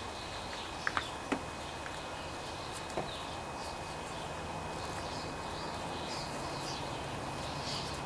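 Outdoor background with birds chirping faintly over a steady low hum, and a few light clicks about a second in and again about three seconds in.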